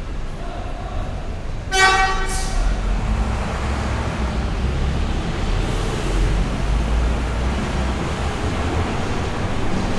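A bus horn gives one short toot on a single pitch, followed at once by a brief hiss of air. A bus engine then runs at low pitch under steady terminal traffic noise.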